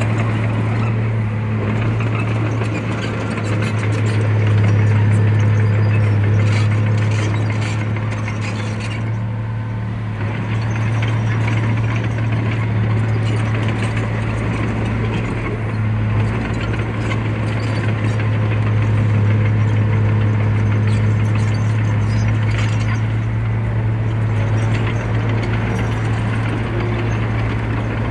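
Heavy earthmoving machine's engine running steadily with a deep, constant hum, overlaid by continuous mechanical clatter and rattling.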